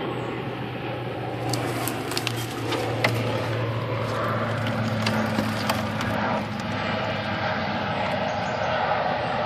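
Black plastic tub being handled and set down on dry leaf litter and twigs, with a run of sharp clicks and crackles in the first half. A steady low hum runs underneath.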